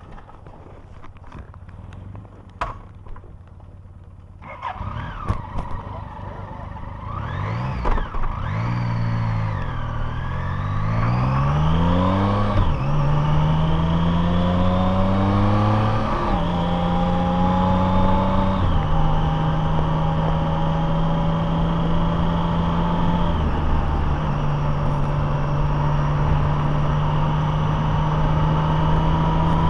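Vehicle engine idling low, then pulling away and accelerating through the gears. Its pitch climbs and drops back at each of about five shifts, then settles into a steady cruise.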